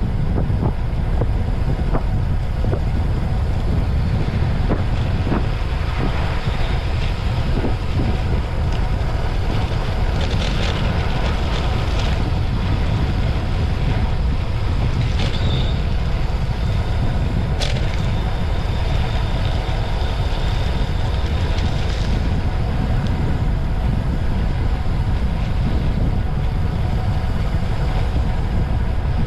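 Wind buffeting an action camera's microphone while riding a bicycle, a steady low rumble, with a few faint clicks in the middle.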